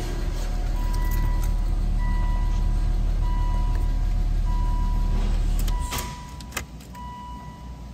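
2008 Volvo XC90's 3.2-litre inline-six idling, with a dashboard warning chime beeping about once a second. Just before six seconds in, the engine is switched off and its hum drops away, followed by a couple of clicks.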